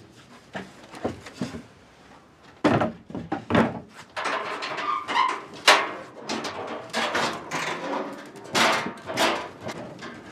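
Heavy wooden crate being shoved and handled on a truck bed: a run of wooden knocks, thuds and scrapes beginning about two and a half seconds in.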